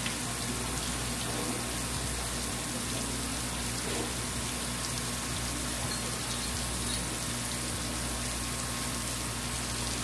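Steady rush of running water with a constant machine hum underneath.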